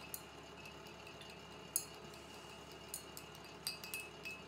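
A paintbrush clinking against a glass water jar: about half a dozen light clinks, the loudest near the middle, over a steady hum and faint whine from a space heater.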